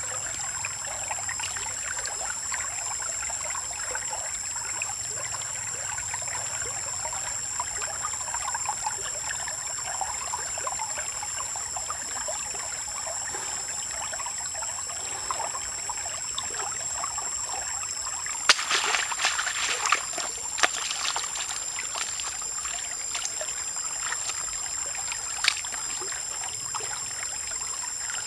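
Shallow stream trickling steadily over pebbles, with a steady high-pitched whine above it. About two-thirds of the way through, hands start splashing and sloshing in the water as squid are rinsed in a wicker basket held in the stream.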